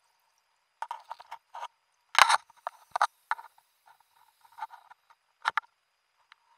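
Irregular clicks and knocks of a diver's gloved hand and gear grabbing and bumping against the wreck, heard underwater through a wrist-mounted camera housing. The loudest knocks come about two seconds in and again near five and a half seconds.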